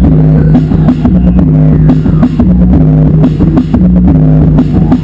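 Loud live noise-rock music: a distorted, repeating low riff of stepping notes over steady drum hits.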